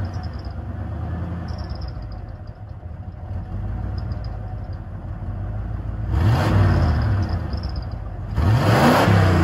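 1993 Ford F-150 pickup exhaust idling steadily, then revved twice: a short rise and fall about six seconds in, and a bigger, louder rev near the end.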